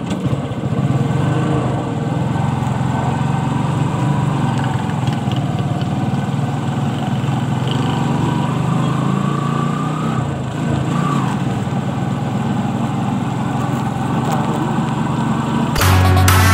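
Motorcycle engine of a tricycle running steadily on the move, heard from inside the sidecar with road noise. Electronic dance music starts abruptly near the end.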